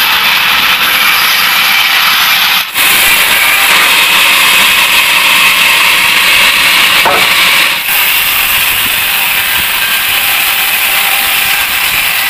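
Large band sawmill running and cutting through a teak log: a loud, steady hiss-like saw noise that dips briefly about three seconds in and again near eight seconds.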